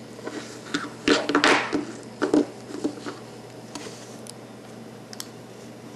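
Handling noise from a Victorinox Classic SD pocket knife and its tools: a few light clicks and short rustles, loudest about a second and a half in.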